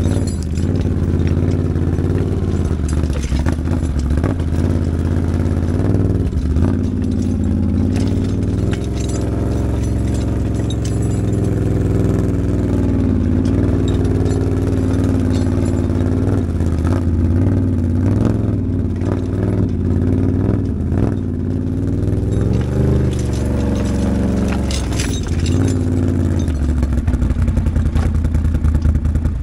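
ATV engine running under way, its pitch rising and falling with the throttle, with scattered clanks and rattles.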